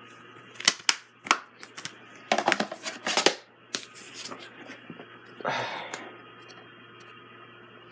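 Plastic Blu-ray disc case being handled: a string of sharp clicks and snaps over the first few seconds, then a short rustle about five and a half seconds in.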